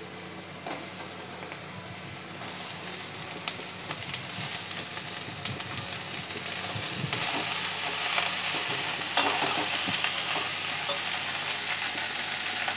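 Hot mustard oil and onions sizzling in a wok as chopped snake gourd is added, the frying growing louder, then stirred with a metal spatula, with a sharp clatter about nine seconds in.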